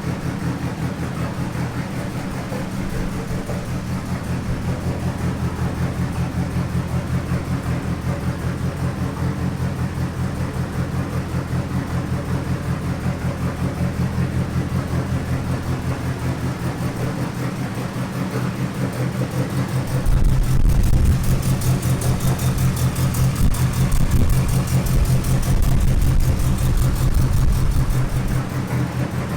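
Nissan S14 Silvia's engine running under load on a chassis dyno at a steady speed, with a fast pulsing beat; about twenty seconds in it becomes louder and heavier.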